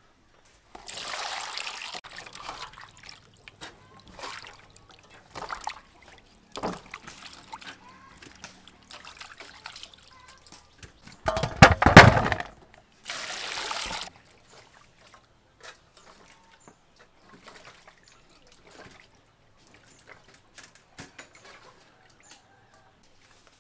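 Vegetables (long beans, carrot, onion) being washed by hand in water in a stainless steel bowl: splashing and sloshing in a few short bursts, the loudest about halfway through.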